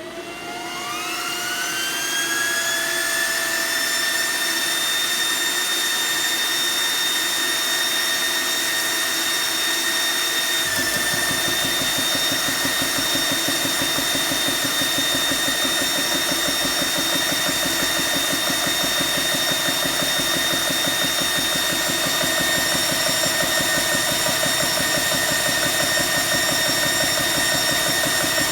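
GX-E-CS3 high-pressure PCP air compressor starting up: its motor spins up with a rising whine over a couple of seconds, then runs at a steady pitch. About ten seconds in, a low, fast pulsing joins the whine, as the pump begins working.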